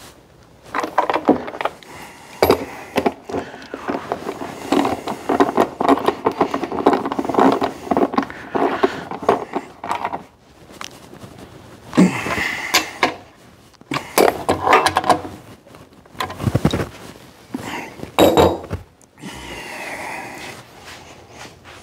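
Irregular clicks, knocks and scrapes of a hand wrench and the plywood table top as the bolts holding the top to the drill press table are snugged down.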